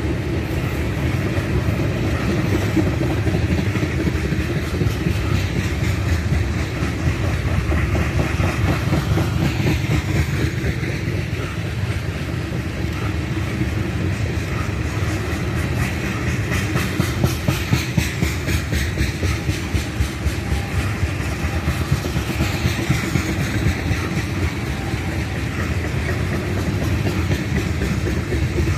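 Train rolling past: a steady rumble with rapid, continuous clicking of wheels over the track.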